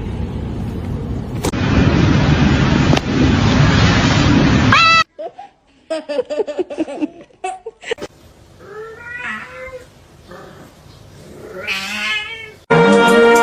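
Several seconds of loud rushing noise that cuts off suddenly, then a cat meowing and yowling in a few drawn-out calls, some falling and one rising in pitch, in the second half.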